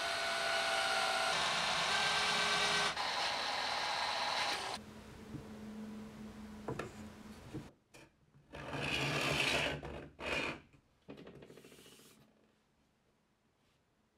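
Cordless drill driving a screw into a softwood block, running steadily for almost five seconds with a couple of shifts in pitch. About eight seconds in, the screw tip scratches along a board in two strokes as the block is slid along its edge to scribe a line.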